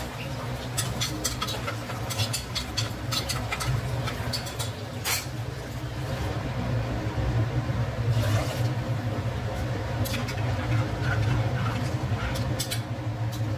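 Dal with tomato and greens sizzling in hot oil in a pressure cooker, with scattered crackles and pops, over a steady low hum. Near the end a spatula stirs and scrapes against the cooker.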